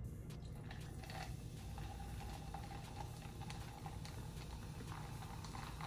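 Faint small clicks and taps of eating and handling food and drink, scattered irregularly over a steady low hum.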